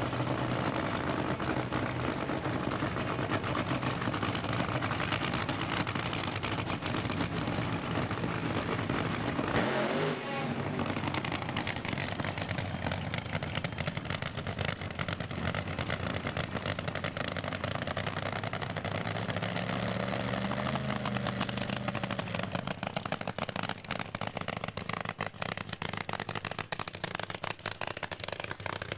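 Supercharged drag-racing funny car engine running, with a sharp loud blip about ten seconds in and the engine note shifting in pitch around twenty seconds in.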